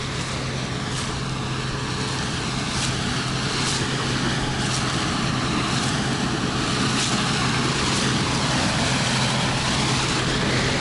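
Case IH 2166 combine harvesting corn: a steady engine drone under a broad threshing and cutting noise, growing slowly louder as the machine approaches. Faint short clicks come about once a second.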